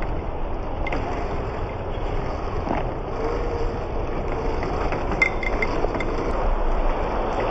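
Traxxas TRX-4 scale RC crawler climbing a loose dirt slope: its small electric motor and geared drivetrain running, with the tyres working over dirt and gravel under a steady rushing noise.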